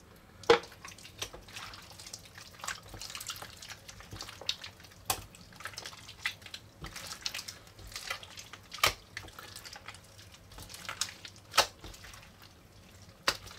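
Hands mushing and kneading a mass of old slime and putty: wet, sticky squelching, with a few sharp snaps as the slime pulls apart.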